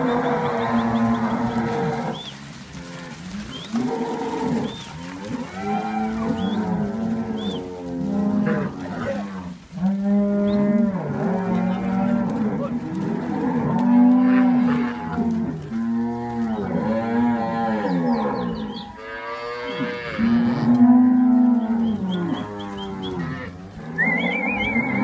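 A corral full of Simbrasil calves bawling, many overlapping calls one after another.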